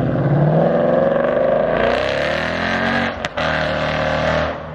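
2017 Mustang GT's 5.0 V8 through a Borla Atak cat-back exhaust, accelerating hard in a pull-by, heard from outside the car. The engine note climbs in pitch and grows louder, with a brief break about three seconds in before it carries on.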